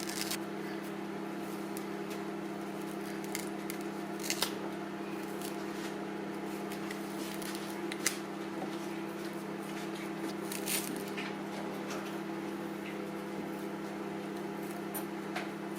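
Scissors snipping through hair and carpet fibres wound round a vacuum cleaner's brush bar: a few scattered snips and clicks over a steady low hum.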